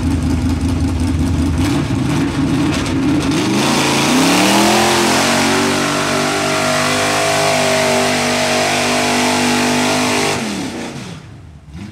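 Lifted Chevy mud truck's big-block V8 running low, then revving up about three and a half seconds in and held at high revs while its 54-inch Super Swamper Boggers tires spin and throw mud and dirt, the engine dropping off near the end.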